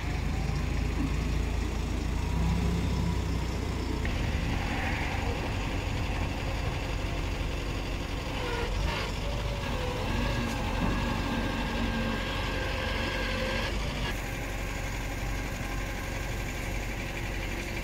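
Small truck engine running steadily at low revs as the truck creeps forward at walking pace.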